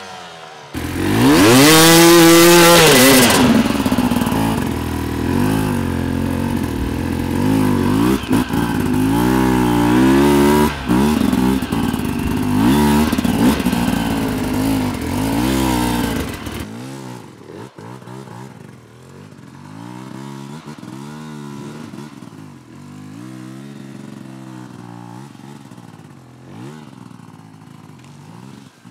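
Enduro dirt bike engine revving hard and unevenly, its pitch rising and falling again and again as the rider works the throttle over rough ground. About 17 seconds in it drops to a quieter level and keeps revving up and down.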